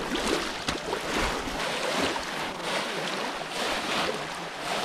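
Muddy pond water splashing and sloshing in irregular surges as several people wade through it and work their hands and nets in the shallows.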